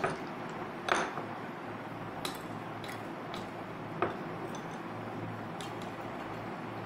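Ice cubes clinking into a glass of lemon juice: a handful of sharp, separate clinks over the first four seconds, the loudest about a second in.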